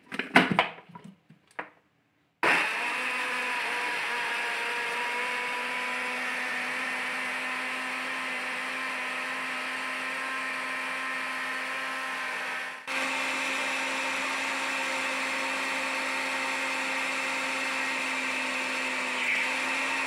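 Moulinex blender running, blending ripe and raw mango pieces with a little water into a thick pulp. A few clicks come first as the lid goes on. The motor starts about two seconds in and runs with a steady hum, dips briefly near the middle, then picks up again.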